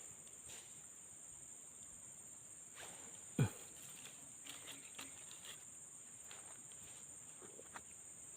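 Insects buzzing in a steady high-pitched drone, with one short sound falling sharply in pitch about three and a half seconds in and a few faint clicks.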